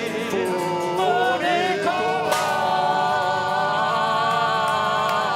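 A tarantella sung by several voices together, ending on a long held note from about two seconds in, with a sharp crash just as the held note begins.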